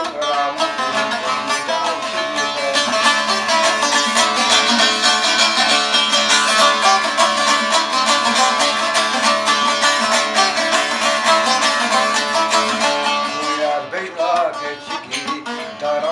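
Long-necked saz plucked solo in a fast run of notes over a steady low note, with the playing thinning out near the end.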